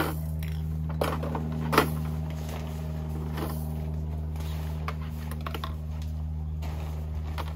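Dome tent being raised: nylon tent fabric rustling, with a few sharp clicks and knocks from the tent poles, over a steady low machine hum.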